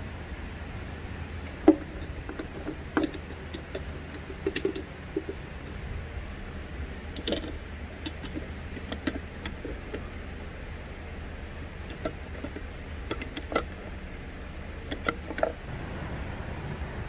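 Scattered clicks and light knocks of tools and parts being handled during repair work, over a steady low hum.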